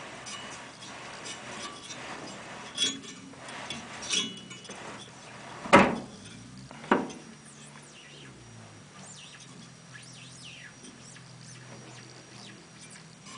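Four knocks and clunks as the stripped-down tumble dryer's motor and fan parts are handled, the loudest about six seconds in. Faint short falling bird chirps follow in the quieter second half.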